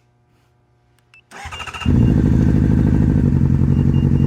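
2009 Honda CBR600RR's inline-four engine remote-started by its alarm: a brief crank of the starter about a second and a half in, then the engine catches and idles steadily. Short high electronic beeps sound as it starts and again near the end.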